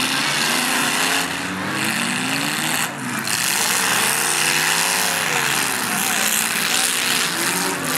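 Several demolition derby cars' engines revving up and down together over a steady noisy din.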